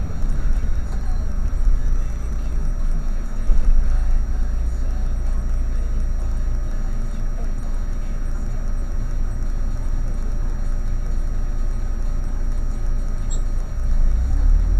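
Vehicle engine idling with a steady low rumble while stationary, growing louder near the end as the vehicle starts to pull away.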